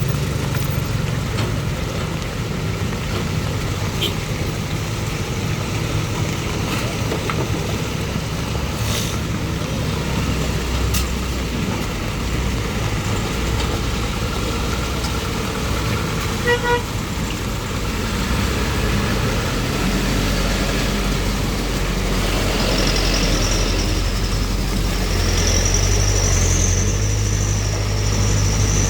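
Heavy truck engines running steadily on the road, with a short horn toot a little past halfway. Near the end an engine grows louder and a wavering high whine comes in.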